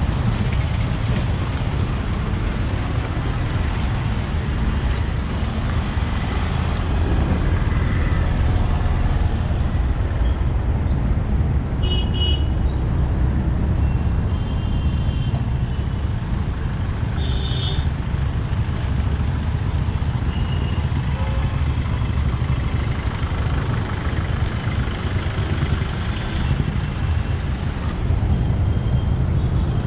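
Steady rumble of busy road traffic: cars, vans and motorcycles running past. A few short horn toots sound about halfway through.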